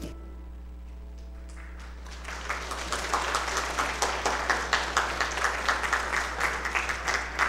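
The last held note of a song dies away, then an audience claps from about two seconds in, the applause growing louder.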